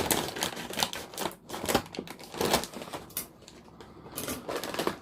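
Plastic snack-chip bag being opened by hand, crinkling and crackling in quick irregular clicks that ease off for a moment and then pick up again near the end.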